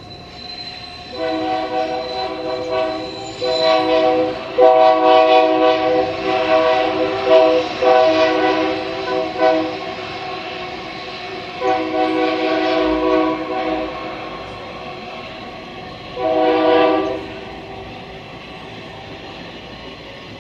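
Freight train's diesel locomotive air horn sounding a chord in four blasts: three long ones, then a short one near the end. The passing train's running noise continues between and after the blasts.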